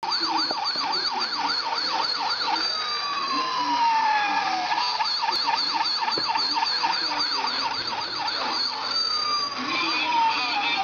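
Bump-and-go toy ambulance's electronic siren: a fast warbling wail of about four cycles a second, broken twice by a long falling tone.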